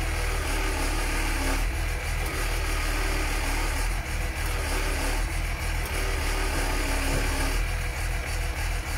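Diesel engine of a truck-mounted knuckle-boom crane truck idling steadily, with an even low pulsing throb.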